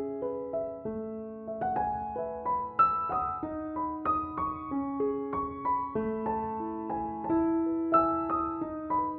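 Gentle background piano music: single notes and chords struck about every half second and left to ring and fade.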